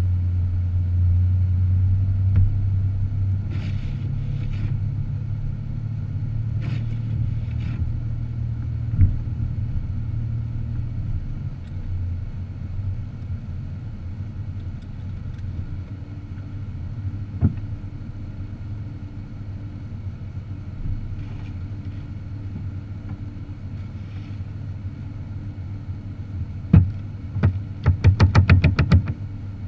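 A car driving, with a steady low rumble of engine and road noise that eases slightly about ten seconds in. A few single knocks, then a quick rattling run of clicks near the end.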